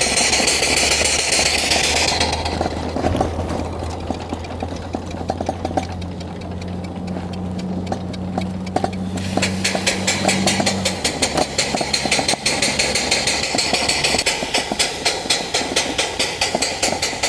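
Homemade steam motorcycle's steam engine chuffing in quick, even beats as it is ridden, its boiler at about 15 atmospheres.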